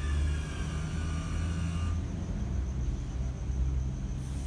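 MTR SP1900 electric train braking into the platform: its traction motor whine falls in pitch and dies away about two seconds in, over a steady low rumble of the train rolling slowly. A short hiss comes near the end.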